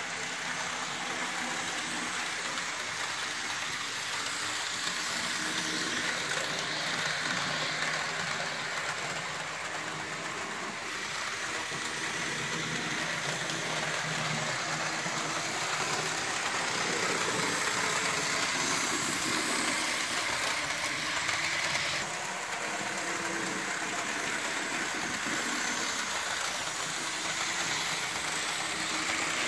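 Fleischmann model BR 78 steam tank locomotive and its train running on a model railway layout: a steady running noise of the small electric motor and wheels on the rails.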